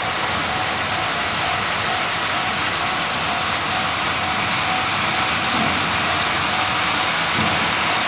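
Hoki 800 ballast hopper wagons rolling steadily past behind a DE10 diesel locomotive, a continuous dense rumble and rush of wheels on rail. A level-crossing alarm rings faintly underneath.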